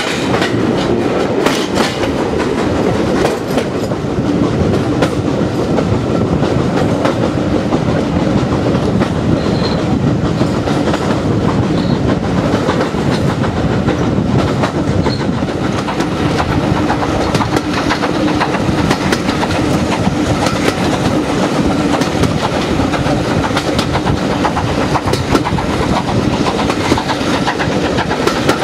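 Steam-hauled passenger train running along the track, heard from a carriage window: a steady rumble with the wheels clicking over the rail joints.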